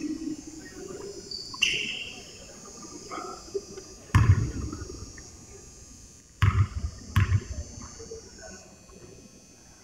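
A basketball bounced three times on a hardwood gym floor, echoing in the hall. The bounces come about four, six and a half, and seven seconds in, the dribbles of a shooter at the free-throw line.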